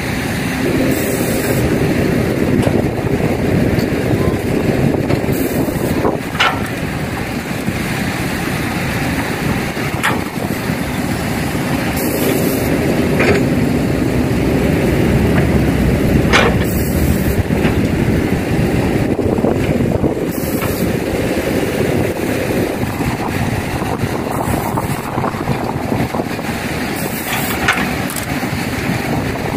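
Heavy diesel engines of a Kobelco excavator and dump trucks running steadily under load, with a few sharp knocks.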